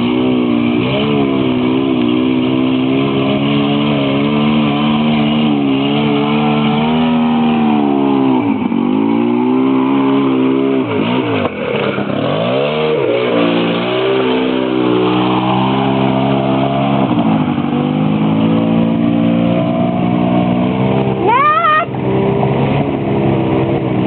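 Polaris Sportsman 600 ATV's twin-cylinder engine running under way, revving up and down with the throttle and dropping off sharply twice around the middle. A brief rising squeal near the end.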